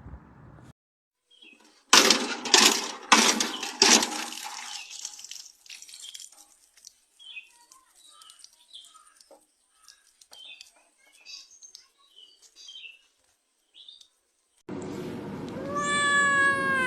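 A few loud noisy bursts, then faint scattered short chirps. Near the end a cat starts a long, wavering yowl that slowly falls in pitch.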